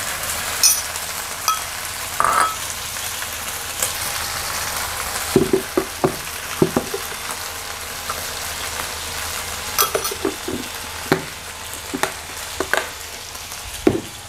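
Chicken breast pieces sizzling in oil in a nonstick wok, a steady hiss. From about five seconds in, a spoon clinks and knocks against a dish many times in short taps.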